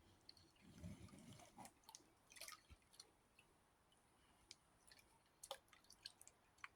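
Faint water sounds of an American Bully dog playing in pond water: a soft low slosh about a second in, then scattered drips and sharp ticks.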